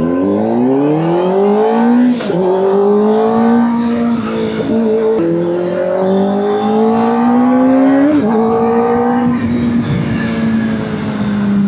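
Kawasaki ZX-4RR's inline-four engine, with a Scorpion slip-on exhaust, pulling up through the revs under way. The pitch climbs and drops sharply at two upshifts, about two seconds in and about eight seconds in, then holds steady near the end.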